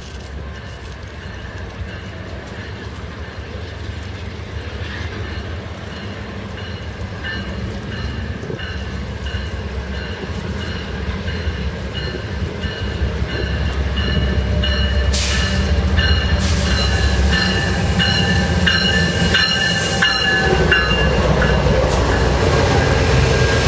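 Amtrak GE Genesis P42DC diesel locomotives approaching and rolling along the station platform, their engine rumble growing steadily louder as they come alongside. A bell rings about twice a second through most of the approach, and the rolling noise of the train rises near the end.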